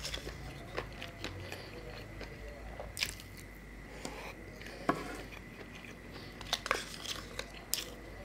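Close-miked eating sounds: a person chewing and smacking spoonfuls of soft food, with a few short sharp clicks scattered through, several close together near the end.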